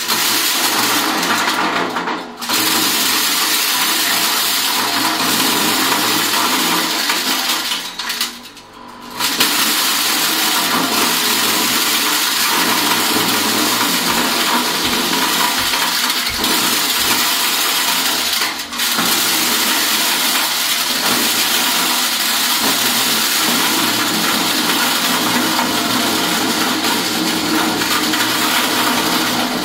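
Mini corn-shelling machine running with a loud, even rushing noise that dips briefly about two seconds in, again for about a second near eight seconds, and once more near eighteen seconds.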